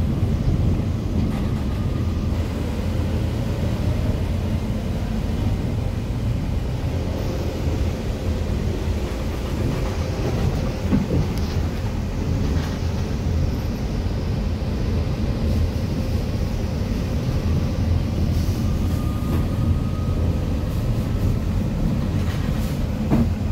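Inside an articulated Volvo B8RLEA city bus under way: a steady diesel engine and road rumble, with a faint whine that comes and goes and a couple of short knocks or rattles.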